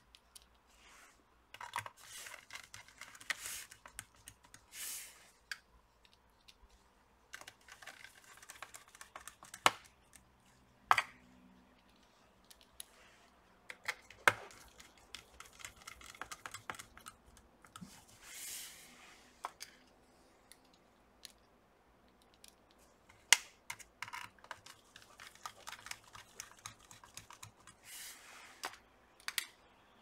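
Small screwdriver driving tiny screws into a laptop's metal bottom cover: repeated bursts of scraping and ticking as the screws turn, with several sharp clicks of metal on metal.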